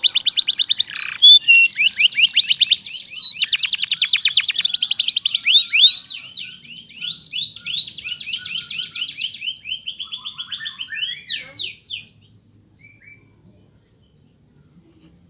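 Domestic canary singing: fast, loud trills and rolls of rapidly repeated high notes, switching between several phrase types, that stop about 12 seconds in.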